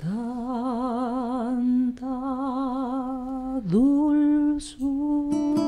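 A woman singing solo, holding long notes with a wide vibrato on the words 'bendecir… tanta', the guitars silent beneath her. Near the end two acoustic guitars come back in with a strum.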